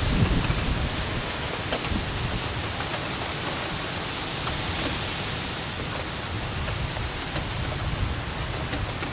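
Steady rain falling, an even hiss with scattered faint drop ticks, over a low rumble that is strongest in the first half second.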